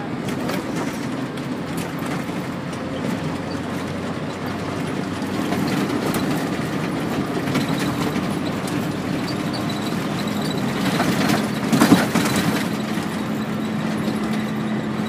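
Car engine and tyre noise heard from inside the cabin while driving on a dirt road: a steady hum with a rattling, jostling undertone, and a few louder knocks from a bump about twelve seconds in.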